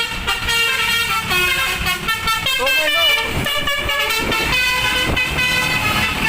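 A tour bus's telolet musical horn playing a quick tune of short notes that step up and down in pitch, with the bus's low engine rumble underneath.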